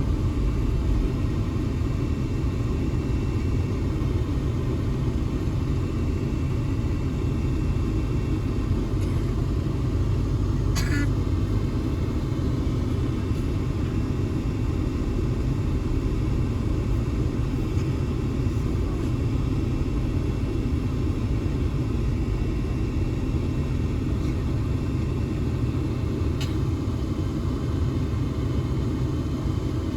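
Steady low rumble of a Toyota Land Cruiser 70 driving, engine and road noise running evenly throughout.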